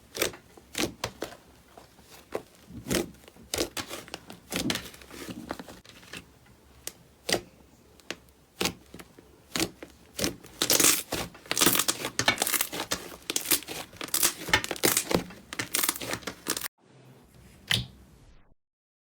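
Slime being squished and stretched, giving an irregular run of sticky crackles and pops that grows denser midway. The sound cuts off suddenly near the end, with one faint click after it.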